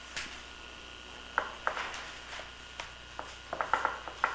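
Scattered light taps and clicks while beaten egg glaze is brushed over an apple pie's top crust, with a quick run of them near the end.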